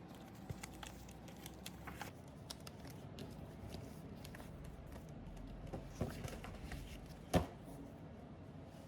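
Scattered light clicks and rustles of small objects being handled, with one sharper knock about seven seconds in.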